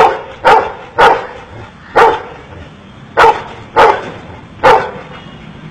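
Golden retriever barking seven times, single barks spaced about half a second to a second apart, counting out a number as a trained trick.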